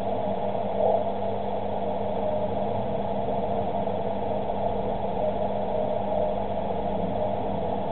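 Icom IC-735 shortwave transceiver receiving on 28.295 MHz through a narrow CW filter: a steady band of hiss with a faint Morse tone from the IZ0CWW/B beacon showing here and there in the noise, and a low hum under it.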